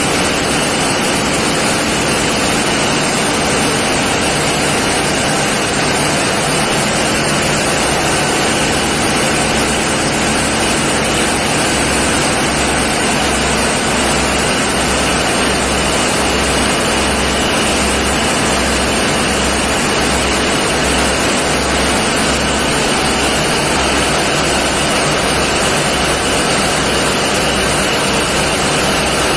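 Marine diesel engine running steadily in a tugboat's engine room: a loud, even machinery din. From about halfway through, a slow low throb beats at roughly one and a half times a second.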